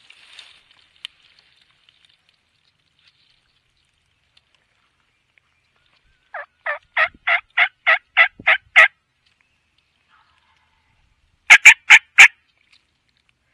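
Turkey calling: a series of about nine evenly spaced yelping notes that grow louder, then, a few seconds later, a burst of four sharp, very loud notes.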